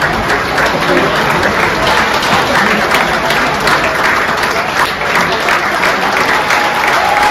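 Audience applause: many hands clapping steadily.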